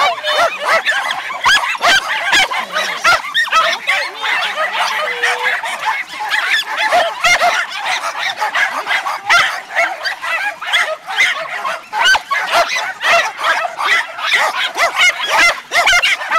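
Many kennel dogs, Jack Russell terriers among them, barking and yapping all at once: a loud, unbroken chorus of overlapping high-pitched barks.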